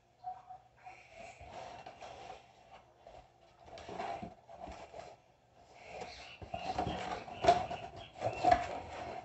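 Cardboard shipping box being handled: flaps pushed back and the box lifted and tipped, with irregular scraping and rustling of cardboard and two sharper knocks near the end.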